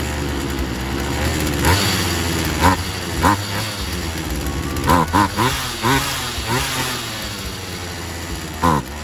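Poulan Wild Thing 2375 two-stroke chainsaw engine running steadily, then revved in short throttle blips, some in quick bunches, from about two seconds in.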